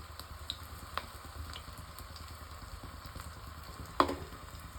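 Crushed garlic frying in hot mustard oil, a steady sizzle with a few small pops as the garlic starts to brown. A single sharp clack comes about four seconds in.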